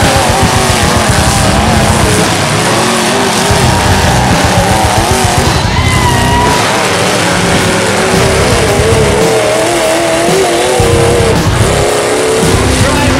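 Engines of several demolition derby trucks revving hard over a continuous low rumble, their pitches rising and falling as they push and spin.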